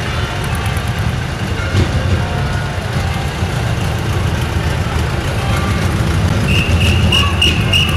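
Vintage tractor's engine running at low speed as the tractor pulls a loaded trailer past, a steady low rumble. About six and a half seconds in, a high steady whistle-like tone joins in and holds.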